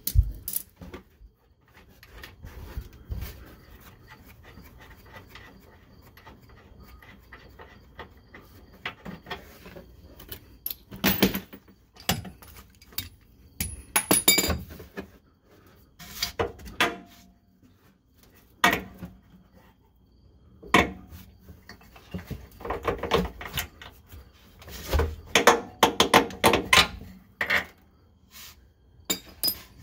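Irregular metal clinks and knocks of a wrench and hardware as the upper bolt and nut are worked off a 2004 Chevy Tahoe's rear shock absorber mount. The knocks are busiest in the second half.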